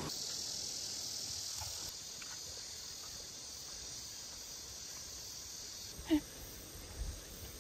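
Steady high-pitched chirring of insects such as crickets, a little louder in the first two seconds, with one brief sharp sound about six seconds in.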